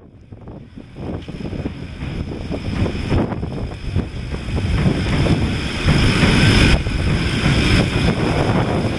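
Electric tram on an elevated steel track rolling in and passing close by: a rumbling run of wheels on rail that grows louder over the first few seconds, with a thin steady high whine on top and wind buffeting the microphone.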